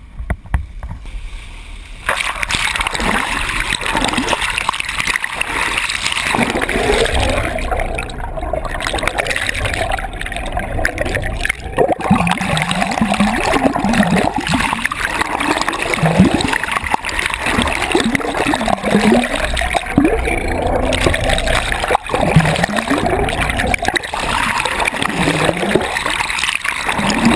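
Rushing, sloshing seawater heard underwater through a submerged camera's housing. The camera goes under about two seconds in, and from then on the sound stays loud and steady.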